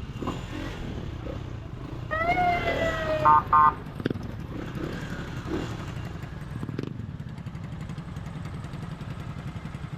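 Motorcycle engine running steadily, with the add-on police siren fitted to the bike sounding a falling tone about two seconds in, then two short, loud beeps.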